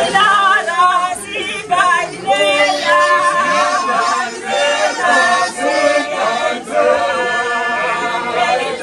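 Church congregation singing together, a group of unaccompanied voices with long held notes.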